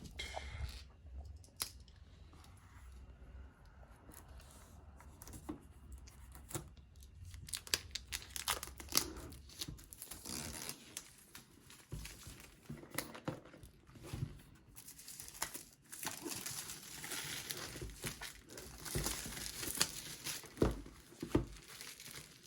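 Packaging of a keyboard box being torn and crinkled open by hand in irregular rustling bursts, quiet at first and busier from about a third of the way in.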